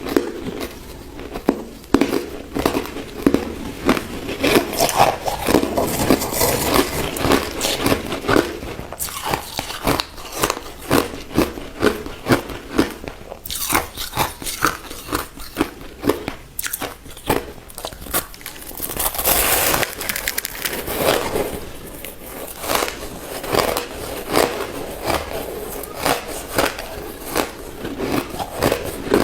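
Crushed ice being bitten and chewed close to the microphone: continuous, irregular crunching and crackling.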